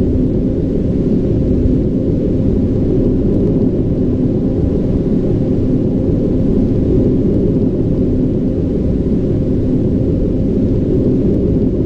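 Steady low rumble with a faint held hum in it, a sound-effect ambience with no sudden events and no change in level.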